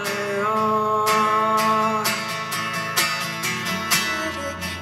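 Live acoustic guitar strummed under a man's singing voice, which holds long notes and changes pitch about two seconds in.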